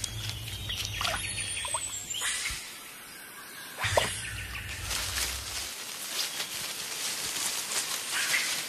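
Forest ambience: birds calling with short chirps and a high falling whistle about a second in, over a steady hiss. A low rumble comes and goes twice.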